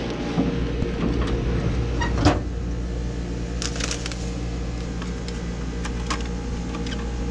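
Steady low hum from an open vending machine, with a crinkle of snack wrappers and short clicks as packets are handled and the bill acceptor is reached into.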